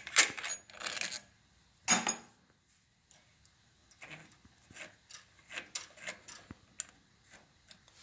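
Small steel carburetor mounting bolts clinking and rattling as they are unthreaded by hand and handled, with a louder metallic clink about two seconds in, then a few faint light ticks.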